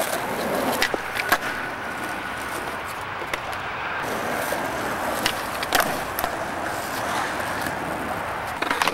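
Skateboard wheels rolling over rough asphalt in a steady rumble, with a few sharp knocks of the board, twice about a second in and twice more near six seconds.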